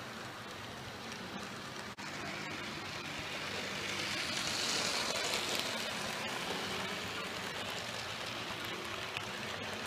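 Model railway trains running on the layout: a steady whirr and rattle of the locomotive motor and the wheels on the track, louder in the middle as a train passes close.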